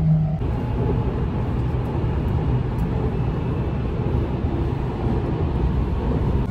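Passenger train running at speed: a steady low rumble with a rushing noise over it.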